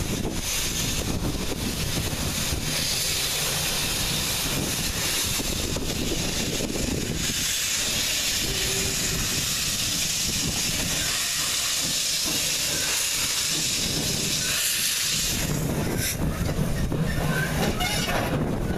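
Andrew Barclay saddle-tank steam locomotive NCB No. 10 working a train past at low speed. A long, steady, loud hiss of steam fills the middle of the stretch, with the engine's low working rumble before and after it.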